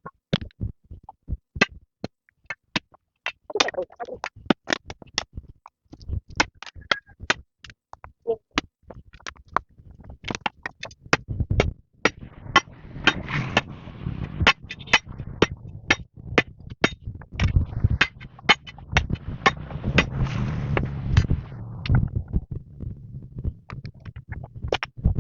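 Rapid, irregular sharp knocks and clicks, a few each second, with a rustling, rumbling noise that comes in about halfway through and fades out near the end.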